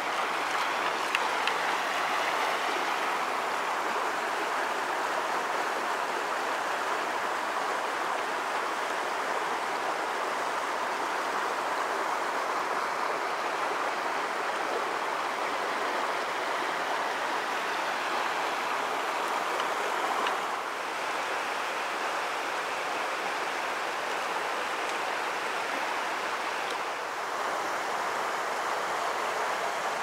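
Mountain stream rushing over boulders in small cascades: a steady rush of water, a little quieter for the last third, with a couple of faint ticks about a second in.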